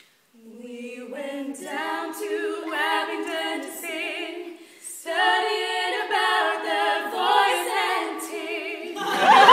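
Female vocal trio singing a cappella in close barbershop harmony, the voices moving together in two phrases with a short break about halfway through. A loud burst of audience noise comes in near the end.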